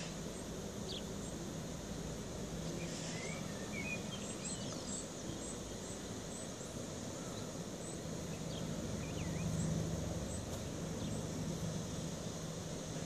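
Outdoor park ambience: a steady background hiss with birds chirping now and then, in short, quick notes.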